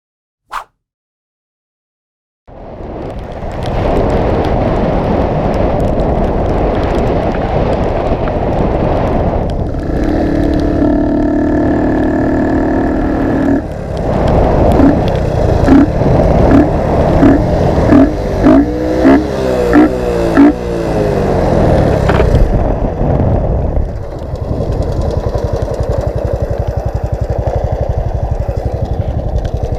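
Honda Wave 110i's single-cylinder engine with an open, filterless intake, starting to run about two and a half seconds in. It is revved in a string of quick throttle blips in the middle, with rising and falling pitch, then settles to a steady run.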